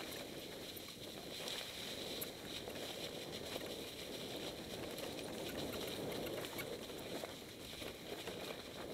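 Mountain bike riding down a singletrack covered in dry fallen leaves: tyres rolling through the leaves, with a steady rustle and small rattling clicks from the bike over the rough ground.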